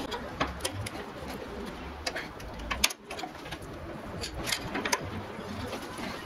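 Scattered light clicks and taps of thin aluminium rods and tools being handled on a wooden workbench and bench vice, the sharpest about three seconds in.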